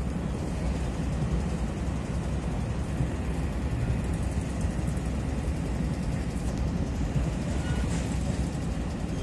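Steady low rumble of a Taiwan Railway passenger train running at speed, heard from inside the carriage.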